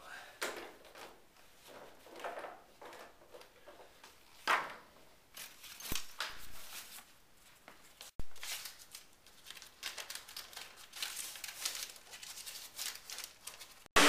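Intermittent rustling, crinkling and short tearing sounds of plastic sheeting and tape being handled and pressed onto a furnace cabinet to seal it for a duct leakage test, with a sharp click about eight seconds in.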